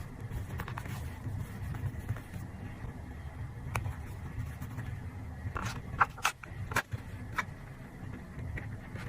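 Paper being handled for a journal collage: a few short, crisp paper snips or crackles about four seconds in and a cluster between five and a half and seven seconds, over a steady low rumble.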